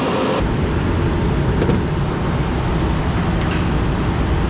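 Steady low wind rumble buffeting an action-camera microphone, with a few faint clicks. The high end drops away suddenly about half a second in.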